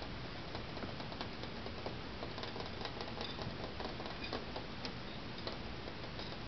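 Irregular light ticks and taps of kittens' paws and claws on a hardwood floor as they play, over a steady low hiss.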